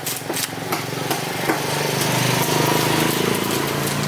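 A small engine running nearby, its steady hum growing louder to about three seconds in and then easing off. A few knife strikes tap on the wooden chopping board in the first second and a half.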